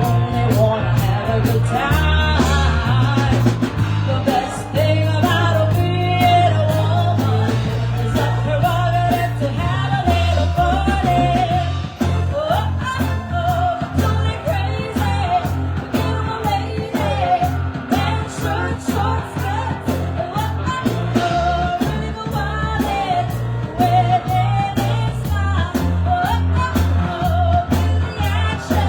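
Live rock-and-roll band playing a song with a singer, over a steady drum beat and a bass line.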